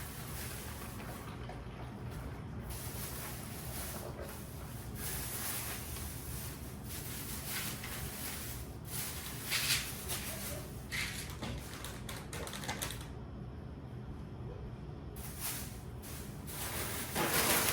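Intermittent rustling, clatter and light knocks of food packages and containers being handled, over a steady low hum.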